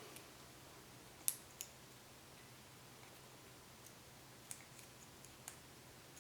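A few faint, sharp plastic clicks as a small flathead screwdriver works the locking tab of a Toyota sensor connector on a wiring harness. The loudest click comes about a second in, with lighter ones near the end.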